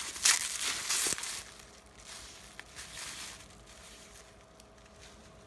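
Plastic bubble wrap being crinkled and pulled off a screwdriver, loud for about the first second and a half. It then gives way to softer rustling and handling that fades out.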